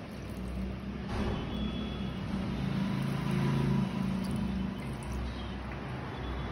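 A motor vehicle's engine running, a low rumble that swells to its loudest a little past the middle and then eases off.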